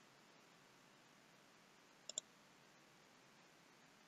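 A single left-button click of a computer mouse about two seconds in, its press and release heard as two quick ticks, over faint steady hiss.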